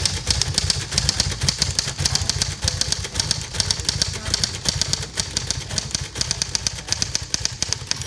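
1931 Royal 10 manual typewriter being typed on: a fast, even run of sharp clacks from the type bars striking the platen, several a second.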